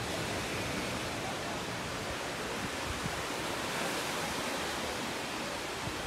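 Steady wash of surf breaking on a sandy beach, mixed with outdoor wind noise, with no single sound standing out.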